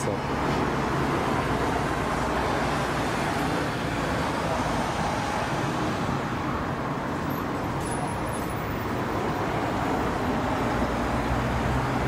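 Steady distant road traffic noise, an even wash of sound with no distinct events.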